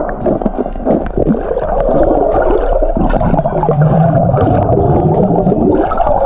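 River water churning and gurgling, picked up by a rugged phone's microphone while the phone lies submerged in the river. It is muffled, with most of the sound low down and many small clicks and pops above it.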